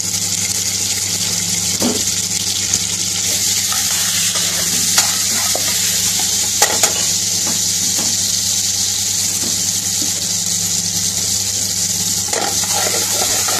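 Pieces of grilled onion and green pepper sizzling in hot vegetable oil in a frying pan, a steady hiss, with a few sharp clicks against the pan as they are stirred. A steady low hum runs underneath.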